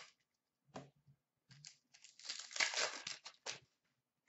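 Upper Deck hockey card pack wrapper being torn open and crinkled: a few light rustles and clicks, then a longer stretch of tearing and crinkling from about two seconds in that lasts about a second and a half.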